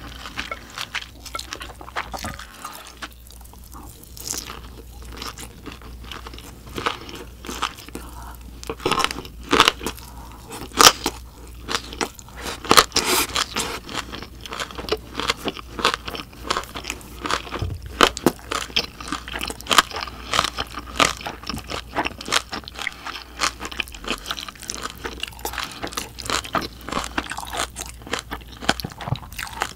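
Close-miked eating sounds: a person chewing and crunching mouthfuls of spicy mixed buckwheat noodles (bibim makguksu). It is a dense run of short, crisp crunches and mouth clicks, loudest around ten to thirteen seconds in.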